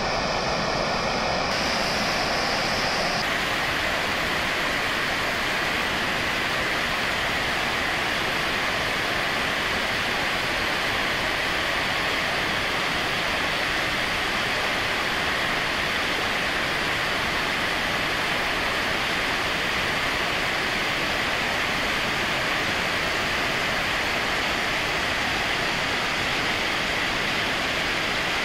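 Waterfall on the Genesee River: a heavy, steady rush of water pouring over the falls into the gorge.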